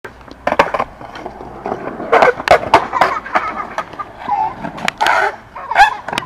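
Skateboard on concrete: wheels rolling, with a string of sharp clacks and knocks from the board, a few of them loud.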